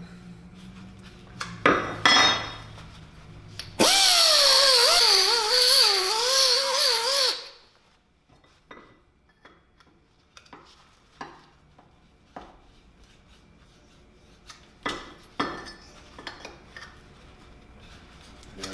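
Pneumatic die grinder running for about four seconds, its pitch wavering as it bites into a bicycle lug to hog out the bore for a slip fit on the tube. Two short loud strokes come before it, and light metal clicks and scrapes follow it.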